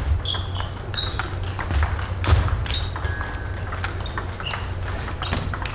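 Table tennis balls clicking irregularly off bats and table. A few short high squeaks and a steady low hum run underneath.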